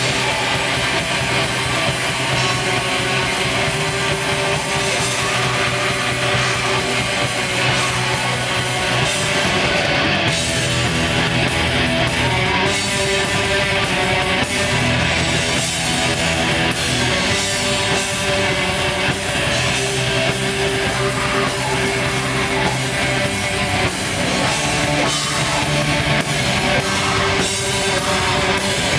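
Black metal band playing live: a loud, dense, unbroken wall of distorted electric guitars over a drum kit.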